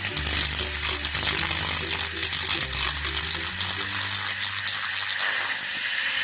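Handheld fiber laser cleaner ablating oxide from a metal surface: a loud, steady crackling buzz that stops abruptly at the very end. Background music with a low bass line plays underneath.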